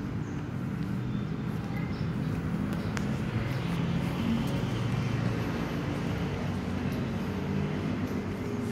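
Steady low rumble of road traffic, with a single sharp click about three seconds in.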